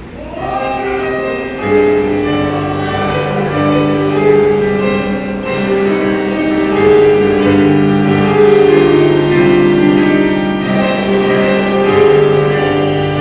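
An orchestra and band playing an instrumental overture in long held chords. The music comes in softly and swells louder about a second and a half in.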